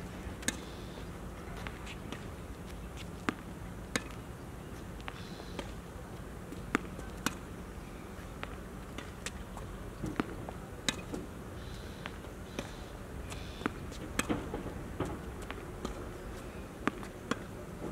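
Tennis rally on a hard court: sharp pops of the ball off the rackets and off the court surface, often in pairs under a second apart, repeating every few seconds. A faint steady low hum runs underneath.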